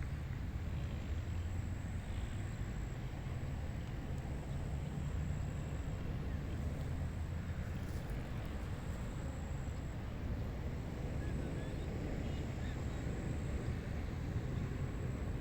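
Steady wind blowing across a rice paddy, a constant low rumble with a soft rushing hiss above it.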